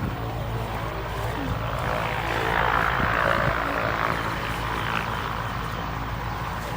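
Steady engine-and-propeller drone of an aircraft, swelling a little about halfway through.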